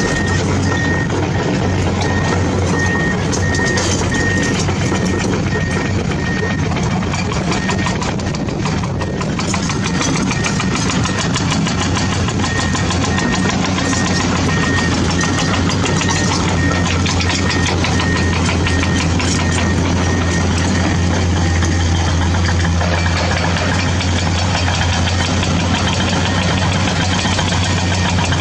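Diesel engine of a heavy machine running steadily, with a warning alarm beeping about twice a second. The beeping pauses briefly about nine seconds in and stops about twenty seconds in while the engine runs on.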